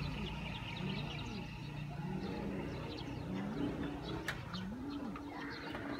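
Domestic pigeons cooing: a string of low, rising-and-falling coos about a second apart, with faint higher chirps among them.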